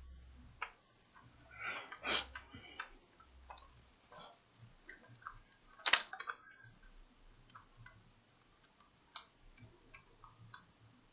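Irregular light clicks and taps of small hard parts being handled on a repair bench, with one sharper click about six seconds in.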